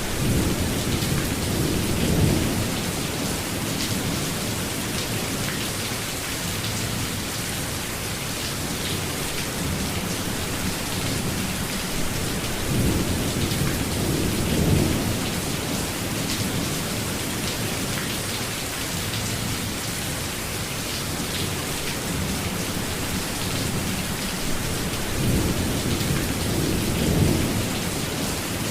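Steady heavy rainfall, with low rolls of thunder rumbling three times: about two seconds in, around the middle, and near the end.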